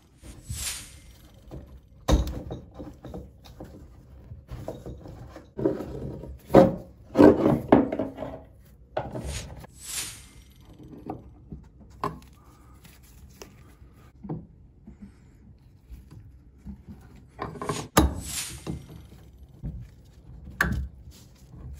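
Irregular knocks, clunks and rubbing from hands and a tool working on the tap fittings and copper supply pipes under a bath. There is a busy stretch of handling noise past the middle and a sharp knock near the end.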